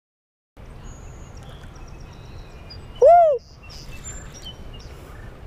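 Faint bird chirps over a steady low outdoor hiss, after a half-second of dead silence at the start. About three seconds in comes a short, loud cry that rises and falls in pitch: a person's exclamation.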